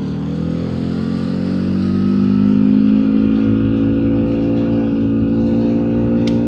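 Yamaha outboard motor on an inflatable boat accelerating under smooth, gradual throttle. Its pitch rises steadily over the first few seconds as the boat gets onto the plane, then holds steady at speed.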